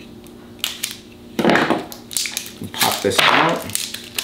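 Plastic battery packaging crinkling and tearing in hand, in several short uneven bursts.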